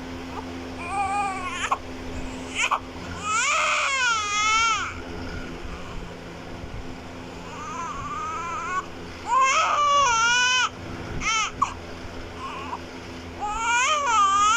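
Newborn baby crying in repeated bouts, each cry wavering up and down in pitch, with short breaks between them.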